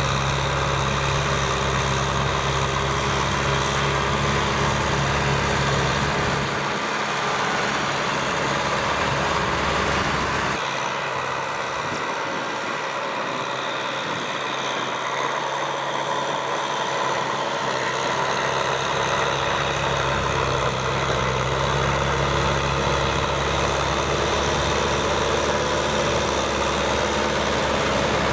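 Kubota M6040SU tractor's diesel engine running steadily. Its low hum drops away about seven seconds in, then comes back about twenty seconds in.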